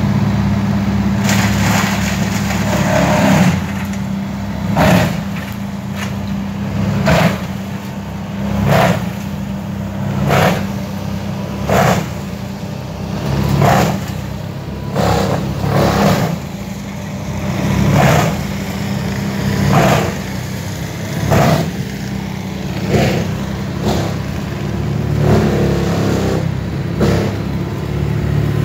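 Wood chipper running steadily while it chews a large log, a loud burst of noise with each bite about every one and a half to two seconds.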